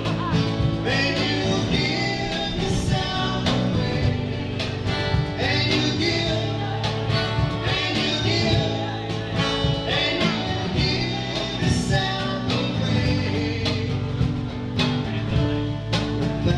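Small live band playing a song: a man singing into a microphone over guitar and a steady cajon beat.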